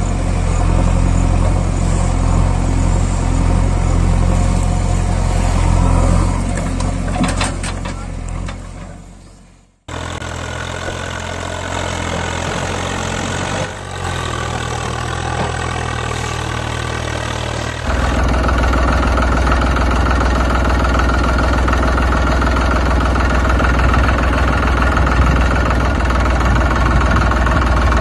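Tractor engine sound running and idling, laid over the toy footage in pieces: it fades out about ten seconds in, comes back lower, and switches to a louder, deeper engine drone about eighteen seconds in.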